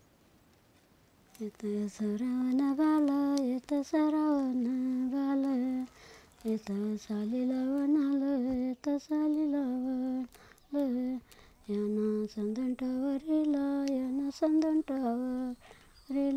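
A woman's voice singing a slow, wordless melody, unaccompanied, in long held phrases with short pauses between them, starting about a second in.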